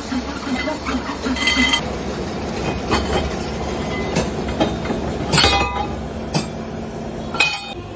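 Metal temple bells clinking and being struck several times, each strike leaving a brief ringing tone; the loudest is about five seconds in. A steady low rumble of machinery runs underneath.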